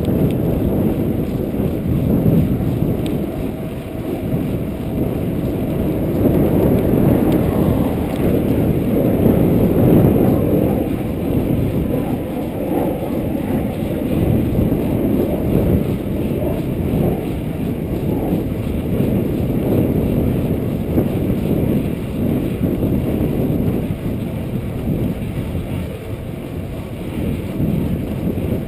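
Wind buffeting the microphone of a chest-mounted GoPro on a moving mountain bike: a loud, muffled rumble that keeps swelling and easing, mixed with tyre noise on pavement.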